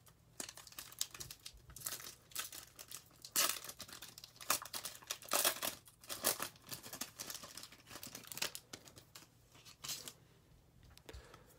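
Wrapper of a 2020 Bowman baseball card pack crinkling and tearing as it is ripped open by hand: an irregular run of crackles that thins out near the end.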